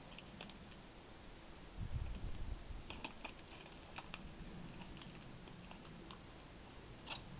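Faint scattered clicks and light metal handling as a sight adjustment tool is worked on an AR-15's sight, with a brief low thud about two seconds in.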